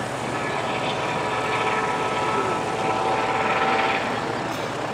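Eurocopter EC130 helicopter flying past: steady rotor noise with a high whine made of several steady tones, typical of its Fenestron ducted tail rotor. It grows a little louder through the middle, then eases near the end.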